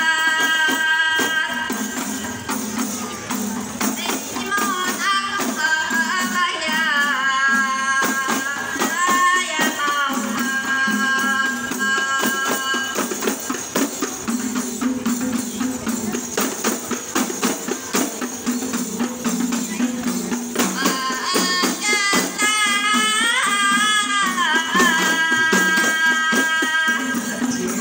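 A rebana group's hand-held frame drums beaten in a rapid, steady rhythm while voices sing along. The singing stops from about 13 to 21 s, leaving the drumming alone, then comes back.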